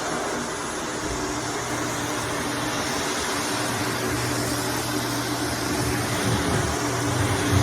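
Shark Apex vacuum cleaner running steadily, its motor drone and suction noise unbroken as it picks up loose red clay dirt.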